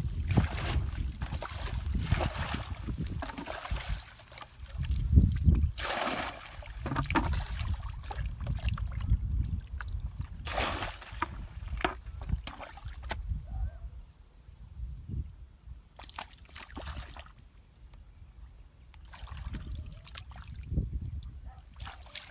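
Shallow muddy water sloshing and splashing in irregular bursts as a plastic bucket scoops through it and hands grope in the mud, over a low wind noise on the microphone.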